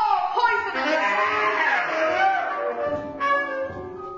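Saxophones playing together in overlapping held notes, several of them bending and sliding in pitch, with a falling glide through the middle; the sound thins out and grows quieter near the end.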